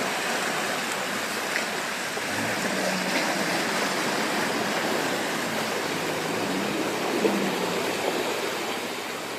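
Muddy water rushing and splashing around a Land Rover Defender as it drives through flooded ruts, with a low engine note faintly underneath that rises and falls from a few seconds in.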